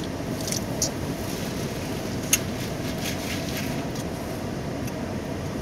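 Steady low rumble with a faint hiss and a few light ticks, one sharper click about two seconds in.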